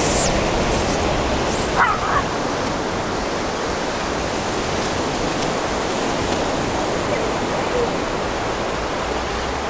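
Steady rushing noise of ocean surf and wind, with a few short high-pitched chirps in the first two seconds.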